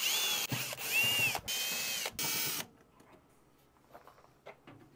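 Cordless drill/driver running in four short bursts, its motor whine rising and falling with each trigger pull as it backs out the screws on the EG4 PowerPro battery's front cover. After that come only a few light clicks as the cover is handled.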